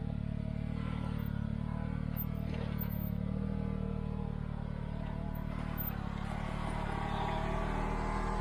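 Can-Am Maverick R side-by-side's turbocharged three-cylinder engine running steadily while driving along the trail, its higher tones growing a little stronger near the end.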